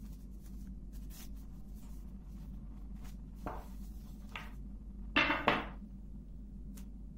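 A large, paper-thin sheet of rolled-out yufka dough rustling and swishing as it is unrolled off a wooden rolling pin and spread flat on a table: a couple of soft rustles, then two quick, louder swishes a little past halfway, over a steady low hum.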